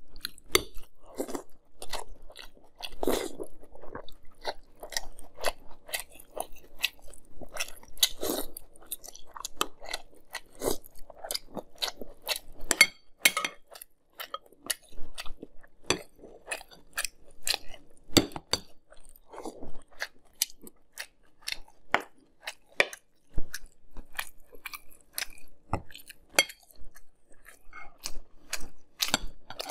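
A person chewing and crunching mouthfuls of Fruity Pebbles cereal in milk, a dense run of irregular crisp crackles, with spoons now and then clinking against a glass bowl.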